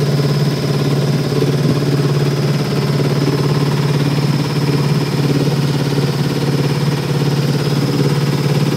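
A small fishing boat's engine running steadily while the boat is under way. It holds a constant low hum with no change in speed, and a thin high whine runs over it.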